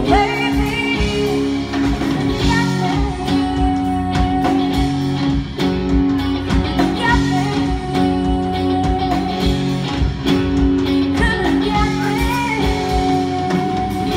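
Live band performing: a woman sings lead, holding several long notes, over electric guitar, bass guitar and drums.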